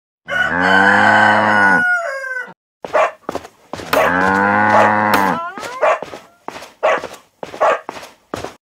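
Cattle mooing: two long, low moos a couple of seconds apart, each bending in pitch as it ends, followed by several short calls.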